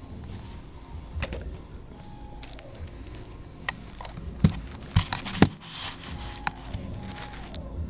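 Rental quad roller skates being carried and handled, with rustling and scraping of clothing and the skates against the body. Several sharp knocks as the skates bump, the three loudest about halfway through.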